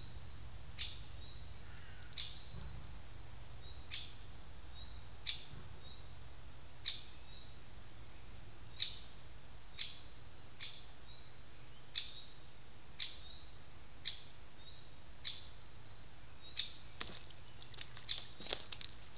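A bird calling over and over, a sharp high chirp that drops in pitch, about once every second or so. Near the end, quick splashing and pattering of water begins as a hawk bathes in a shallow pool.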